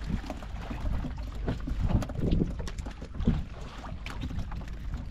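Wind buffeting the microphone over the sea, with many light slaps and taps of small mackerel and yellowtail scad being shaken off a multi-hook handline and dropping and flapping on the boat deck.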